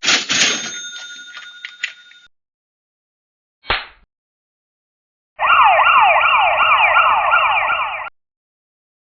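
A string of short sound effects: a sudden hit with ringing tones that fade over about two seconds, a brief sharp hit, then a loud siren sweeping up and down about three times a second for nearly three seconds before cutting off.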